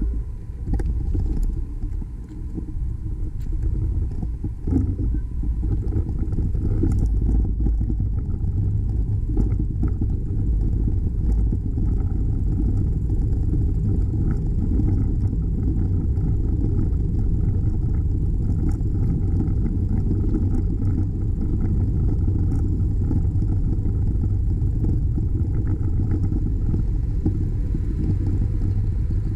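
Steady low rumble of wind and road noise on the microphone of a moving bicycle, with faint scattered clicks and rattles.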